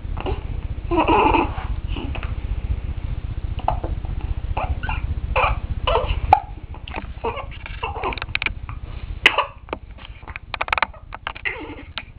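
Newborn baby hiccuping: a string of short, sharp hics mixed with small fussy whimpers and grunts. A low rumble lies under the first half and fades about halfway through.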